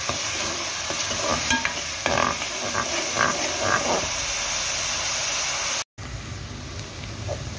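Finely chopped onions sizzling in hot oil in an aluminium kadhai, with a steel ladle stirring and now and then scraping the pan; the onions are being fried just until their raw taste is gone. The sound cuts out for a moment after about six seconds, then the sizzle goes on a little quieter.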